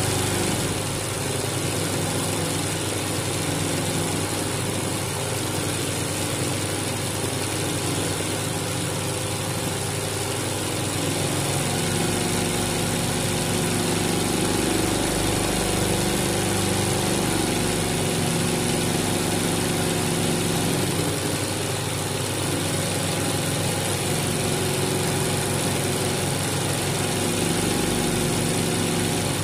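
Sewing machine running steadily at speed, its motor humming and its needle stitching in a rapid, even rhythm as it sews an outline around an embroidered patch through fabric held in a hoop.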